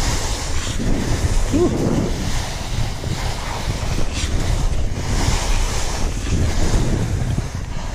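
Wind rushing over an action camera's microphone on a fast ski descent, mixed with skis hissing and scraping over spring corn snow.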